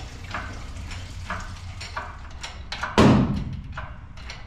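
Hydraulic engine hoist being worked, with a short rasping stroke about every half second to a second, and one loud clunk about three seconds in.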